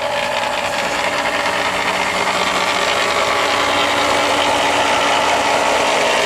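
Swimming-pool pump's electric motor running with the noise of a failed bearing, which went out when the pump ran dry during a pool leak. It grows louder over the first couple of seconds, then holds steady.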